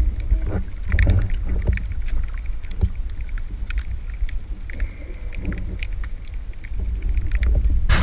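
Muffled underwater sound picked up by a GoPro in its waterproof housing: a steady low rumble of water moving around the housing, with scattered short clicks and crackles.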